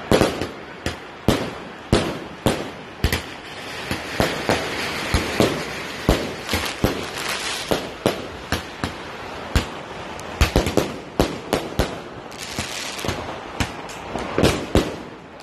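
Fireworks going off: many sharp bangs in quick, irregular succession, several a second at times, with a steady crackling hiss between them in the middle and again near the end.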